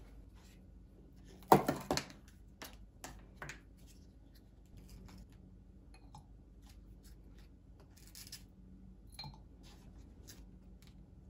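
Plastic ice cube tray of frozen lemon juice and its lid set down on a glass tabletop with a sharp clatter about one and a half seconds in. Light clicks and cracks follow as the plastic tray is handled and twisted to loosen the cubes.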